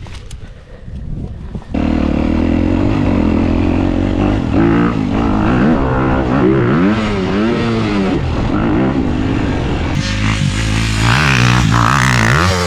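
Dirt bike engine revving, its pitch rising and falling again and again with the throttle, cutting in loudly about two seconds in.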